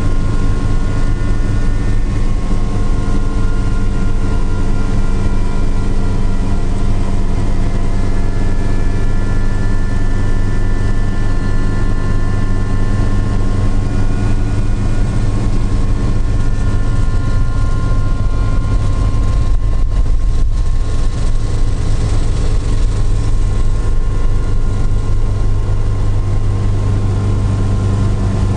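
Helicopter in flight heard from inside the cabin: a steady loud rotor and engine drone with a constant high turbine whine on top.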